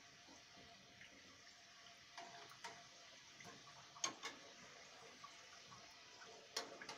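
Kachoris deep-frying in hot oil in an aluminium kadhai: a faint, steady sizzle, broken by a few sharp clicks, the loudest about four seconds in and again near the end.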